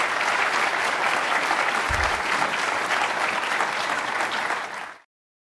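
Audience applauding, a dense steady clatter of clapping, with a brief low bump about two seconds in; it cuts off abruptly near the end.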